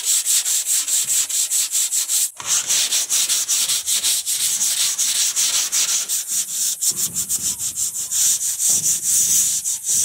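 Hand sanding of primer on the panels of a small box trailer: sandpaper on a pad rasping in quick, even back-and-forth strokes, knocking down the rough, crusty primer coat. There is a short break about two seconds in.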